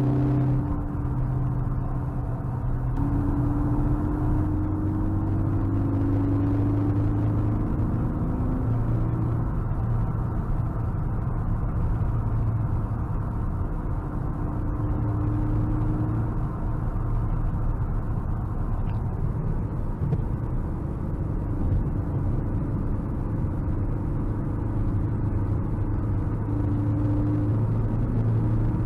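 Engine and road noise heard inside the cabin of a 2017 Ford Focus ST on its stock exhaust while driving. The turbocharged 2.0-litre four-cylinder runs at a steady, moderate pace, its pitch drifting gently up and down.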